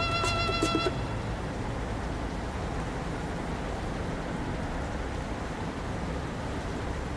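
Background music that cuts off about a second in, then a steady rushing noise with a low rumble, like outdoor ambience.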